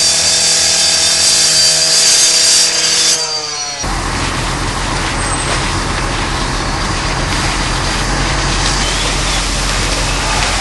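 Firefighter's power saw cutting metal: a loud high hiss over the saw's steady engine tone, which falls in pitch as the saw spins down about three seconds in and then stops. After that comes a steady noise with a low hum from the fire scene, flames burning and fire-apparatus motors running.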